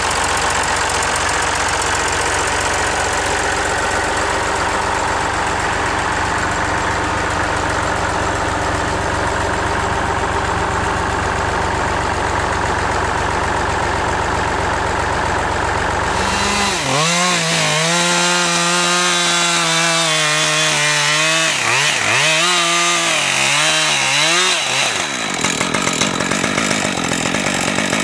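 Massey Ferguson 35 tractor engine idling steadily. About two-thirds of the way through it gives way to a Husqvarna 545 Mark II two-stroke chainsaw revving up and down several times, then running steadily as it cuts into wood near the end.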